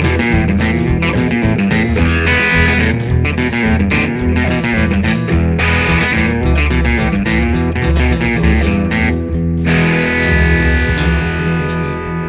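Background music: electric guitar rock with a steady beat.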